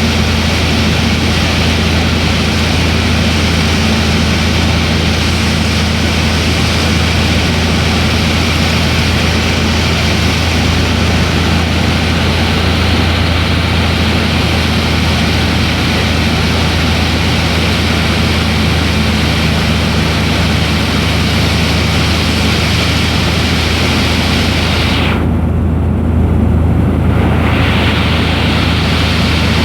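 Cessna 172's piston engine and propeller droning steadily, with rushing air noise over it. About 25 seconds in, the hissing part of the sound briefly falls away for a couple of seconds while the low drone carries on.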